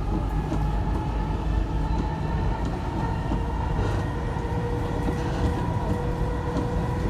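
Dubai Metro carriage running between stations, heard from inside: a steady low rumble with a faint high whine, and a second thin tone joining about halfway through.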